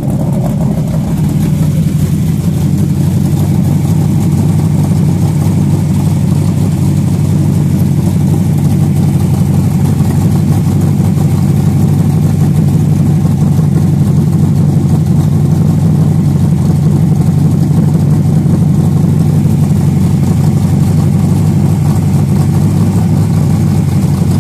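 Chevy Nova's big-block V8 idling steadily through a new 3-inch exhaust with Wicked Flow mufflers and an H-pipe.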